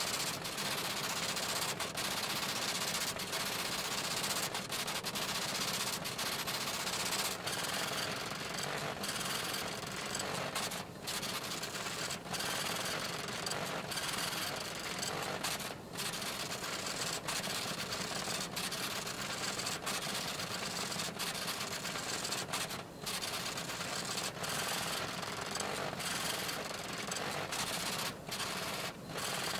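Rapid, continuous clatter of a typing sound effect for text printing onto a computer terminal, with brief pauses every few seconds.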